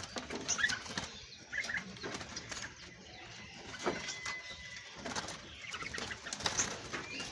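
Many caged songbirds chirping and calling at once in short, scattered notes, with wings fluttering in the cages.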